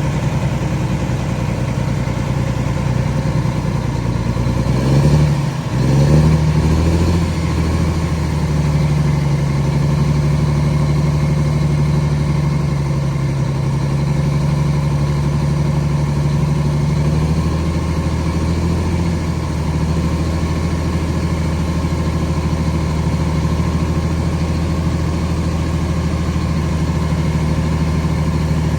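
Vintage bus engine running steadily; about five seconds in its pitch briefly sweeps and dips, then it settles and holds a steady, slightly higher note.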